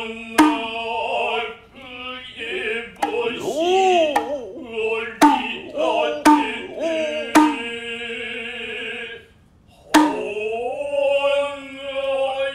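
Noh chanting (utai) with a kotsuzumi shoulder drum: long held and sliding vocal tones, broken by about six sharp, ringing strikes on the drum spaced a second or two apart.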